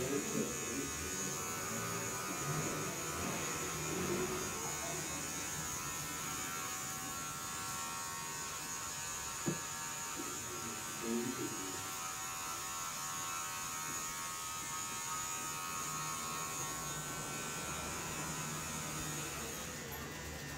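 Steady electric hum of a small motor with a thin high whine. There is one sharp click about nine and a half seconds in.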